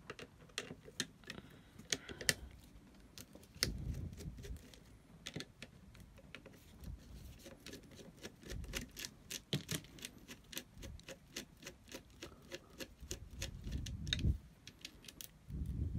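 Small, irregular metal clicks and ticks from a screwdriver and long-nose pliers working the terminal bolt and nut loose on a sealed lead-acid battery, with a few dull knocks from the handling.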